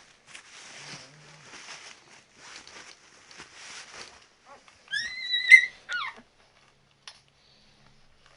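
Ten-day-old Labrador retriever puppy whimpering: a few short, high squealing cries about five seconds in, each rising and falling in pitch. Before them come soft shuffling, rustling noises.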